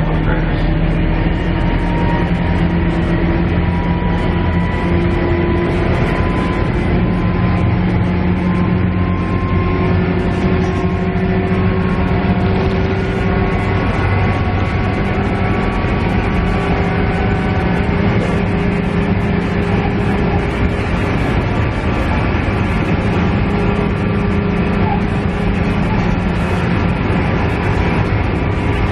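KiHa E130 diesel railcar heard from inside the car while running: a steady diesel engine drone and wheel-on-rail rumble, with a transmission whine that climbs slowly in pitch.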